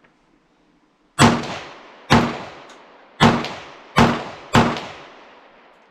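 Kel-Tec PMR-30 .22 Magnum pistol firing five shots at an uneven pace, each report trailing off in a short echo. The five-year-old, trunk-stored rimfire rounds go off normally.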